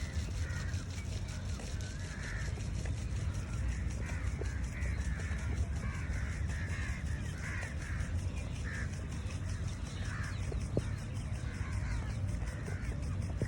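Birds calling with short calls repeated over and over, over a steady low rumble and a fast, even high-pitched ticking of about four to five ticks a second.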